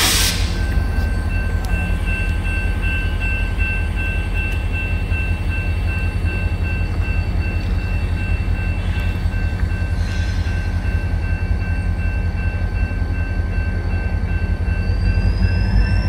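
Ex-Guilford diesel locomotive 507 running with a steady low engine rumble and a faint steady whine. Near the end the whine rises in pitch.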